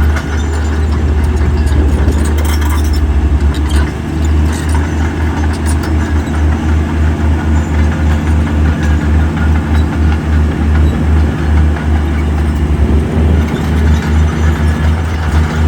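Heavy diesel engine of earthmoving machinery running, a deep rumble that pulses in loudness.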